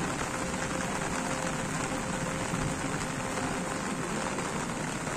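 Steady rain falling, an even dense patter of drops on wet ground.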